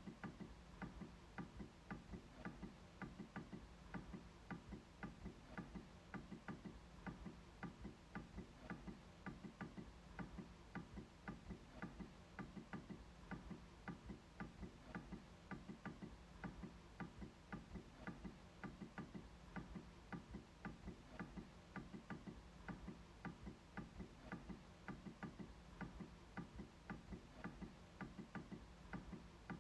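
MacBook trackpad being clicked over and over: faint, sharp clicks at a fairly steady pace of about three a second.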